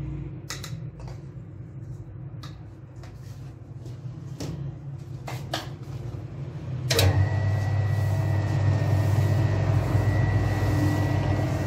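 A few clicks and knocks of handling at an electric dough mixer's steel bowl. About seven seconds in there is a sharp click, and the mixer starts kneading, running with a steady low hum and a thin high whine.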